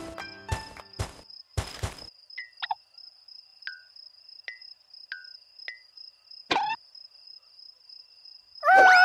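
Cartoon cricket-chirp sound effect: a steady high-pitched trill over an otherwise hushed pause, with a few short squeaky blips that drop in pitch. The tail of a plucky music cue plays at the start, and loud theme music comes in near the end.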